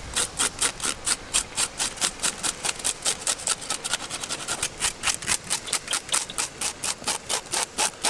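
Fast, even scraping strokes, about five a second, as the scales are scraped off a water snake's skin and flake away.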